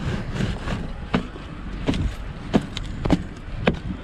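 Footsteps crunching on frozen snow, a short sharp step about every half second, over a low steady rumble.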